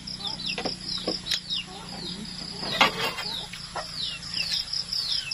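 Birds chirping in a fast string of short high calls, each falling in pitch, about three a second, over a steady high insect buzz. A few short rustles and knocks cut in, the loudest about three seconds in.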